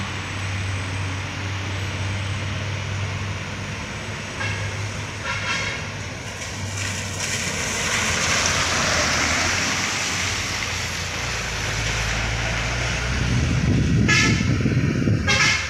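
Diesel trucks running past, with road noise swelling as a tanker truck passes close about eight seconds in and a heavy engine rumble building near the end. Short horn toots sound twice in the middle and twice more, louder, near the end.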